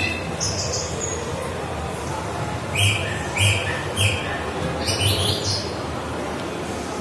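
Bird calls: a short high call about half a second in, then a run of three quick, harsh calls in the middle and a few higher calls just after, over a steady background hubbub.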